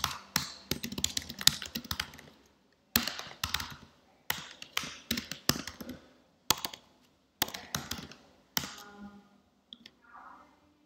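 Typing on a computer keyboard, rapid keystrokes in bursts of a second or two with short pauses between them, thinning to a few faint clicks near the end.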